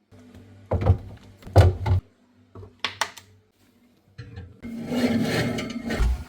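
Three sharp knocks, then a rough scraping or rubbing sound that lasts about a second and a half near the end.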